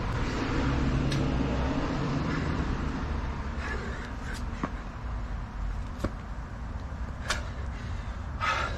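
Burpees on an asphalt driveway: a few short, sharp slaps of hands and sneakers landing on the pavement, over a low rumble that fades after the first few seconds.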